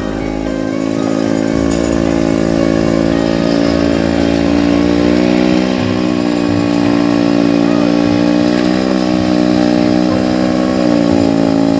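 Old motorcycle engine converted to drive a log winch, running steadily at a fairly constant speed after its pitch rises slightly during the first second or two.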